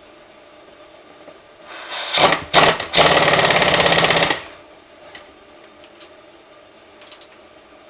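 Impact wrench hammering on the clutch basket nut of a Suzuki DR-Z400 engine. Two short bursts come about two seconds in, then about a second and a half of steady rapid hammering as the nut is run down tight.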